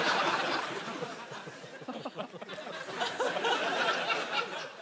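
Studio audience laughing, the laughter fading away.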